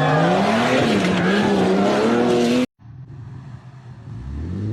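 Off-road 4x4 engine revving hard, its pitch dipping and climbing under load, until it cuts off abruptly about two and a half seconds in. After a quieter moment, another engine revs up, rising in pitch near the end.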